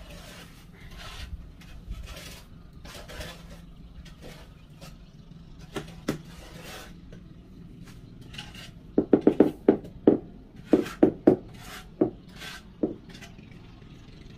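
Tile-setting tools scraping and rubbing on mortar and floor tiles. About two-thirds of the way through comes a quick run of about a dozen sharp knocks in short groups: tapping on the tiles as they are set.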